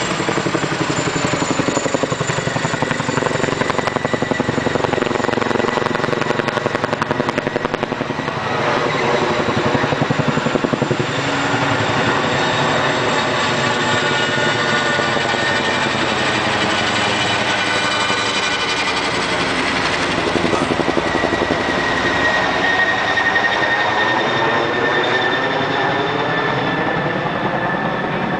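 Boeing CH-47 Chinook tandem-rotor helicopter climbing and flying away: fast, steady rotor chop over the whine of its twin turboshaft engines, with tones that slowly slide in pitch as it moves off.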